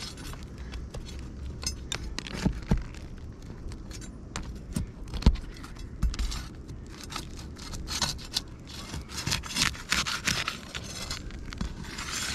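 Asphalt roof shingles being scraped and pried at with a hand tool to get under them to the nails, with scattered sharp knocks, the loudest about five seconds in, and denser scraping near the end.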